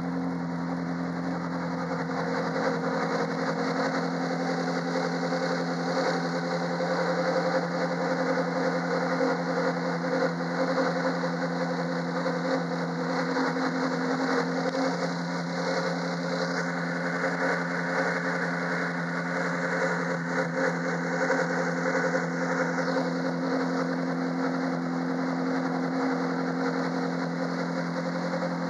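Ferrari 458 Challenge's 4.5-litre V8 idling steadily, an even engine note with no revving.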